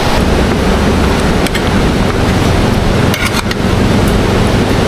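Waterfall's rushing water, a loud steady wash of noise, with a few faint clicks about one and a half and three seconds in.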